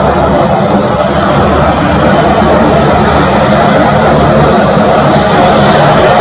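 Airbus A310's two GE CF6-80C2A2 turbofan engines running at taxi power, a loud steady rumble and hiss.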